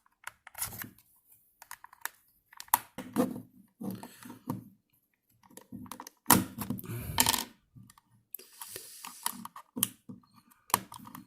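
Irregular clicks and scrapes of the Nvidia Shield TV 2017 controller's plastic shell being handled and pried open.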